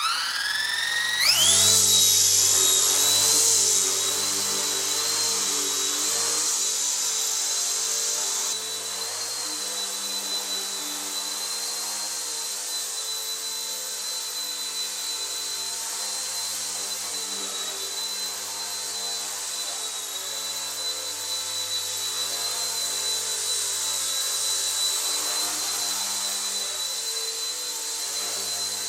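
Small 1/33-scale RC helicopter's electric motor and rotors spinning up with a quickly rising whine, then holding a steady high-pitched whine that wavers slightly as it hovers and flies.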